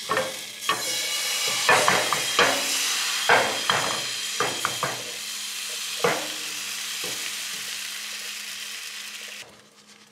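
Crepe batter sizzling in a hot nonstick frying pan as it is poured and spread, a steady high hiss with repeated sharp clinks and knocks of the ladle and pan over the first half. The sizzle cuts off suddenly near the end.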